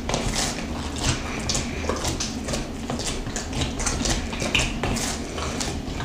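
Hands kneading soft, oily yeast dough in a ceramic bowl: irregular wet squelches and smacks as the oil is worked into the dough.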